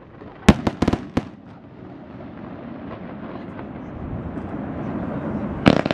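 Fireworks display: a quick volley of four or five sharp bangs from aerial shells bursting within about a second, then a steady background din slowly building, and another cluster of bangs near the end.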